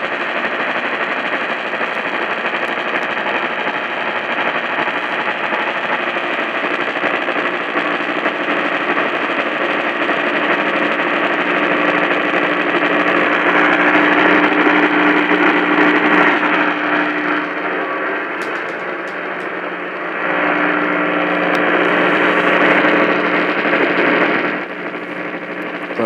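Sangean AM radio's speaker hissing with static from a weak, distant station, with faint steady tones buried in the noise: an Emergency Alert System test's alert tones fading in and out. The static swells twice and drops off suddenly near the end.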